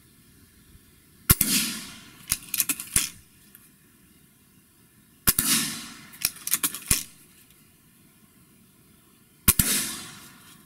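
Three shots from a Gamo Swarm Magnum .22 break-barrel air rifle firing pellets into a car door, about four seconds apart. Each sharp report trails off briefly, and after the first two a quick run of clicks follows as the barrel is broken and cocked for the next shot.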